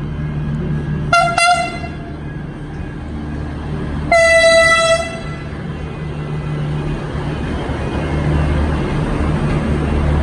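Horn of V/Line VLocity diesel multiple unit VL23 sounding a quick double toot about a second in, then one longer blast of about a second. A steady low diesel engine hum runs underneath and grows louder near the end as the train comes on.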